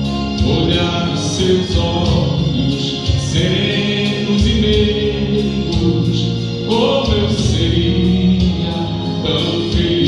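Gospel hymn sung in Portuguese by a man into a microphone, with instrumental accompaniment.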